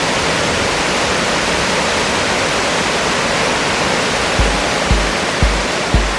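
Water of a small mountain waterfall rushing steadily over rock slabs, a dense even roar. From about four seconds in, background music with a low kick-drum beat, about two beats a second, comes in over it.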